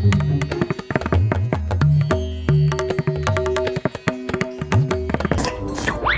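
Background music with a busy, tabla-like hand-drum beat under steady pitched notes. A rising glide sounds just before the end.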